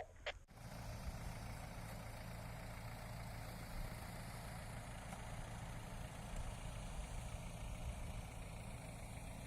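Off-road 4x4 vehicle's engine idling steadily, a low even hum.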